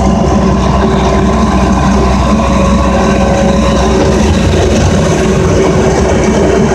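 Engine of a snow-plowing loader running steadily, heard close up from the operator's seat as the machine works.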